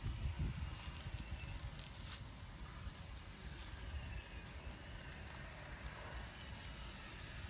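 Wood cooking fire crackling, with scattered sharp pops over a steady low rumble.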